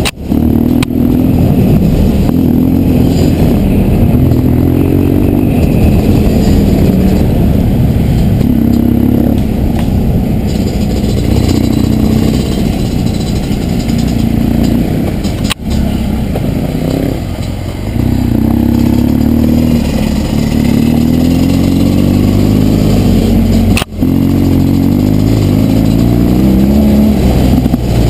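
BMW R1200 GS boxer-twin engine running under way on a dirt track, its revs repeatedly climbing and dropping as the rider accelerates and changes gear. The sound drops out sharply for a moment twice.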